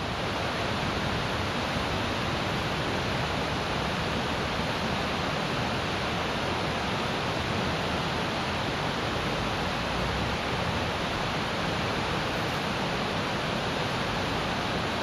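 Steady, even rushing noise with no distinct events standing out.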